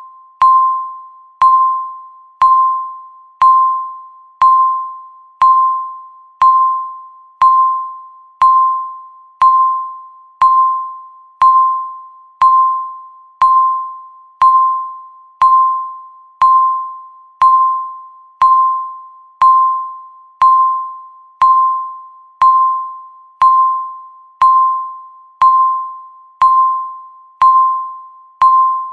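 Countdown timer beeping once a second: a single-pitched electronic beep with a sharp start that fades quickly, repeated evenly to mark each second left.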